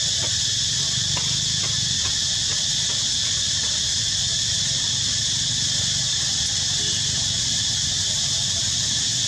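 Steady, high-pitched buzzing chorus of insects, with a low rumble underneath.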